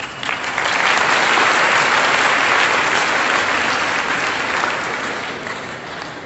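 Applause from a church congregation and clergy: clapping swells within the first second, holds for a few seconds, then tapers off near the end.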